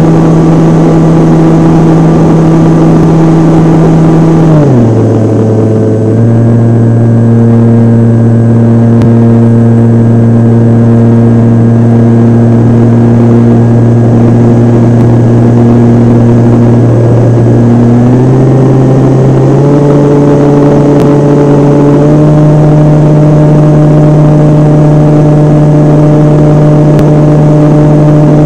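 Radio-controlled model airplane's motor and propeller running loudly, picked up by a camera on the wing. About five seconds in the pitch drops as the throttle is eased back, holds steady, then climbs again in steps from about eighteen to twenty-two seconds as power is added.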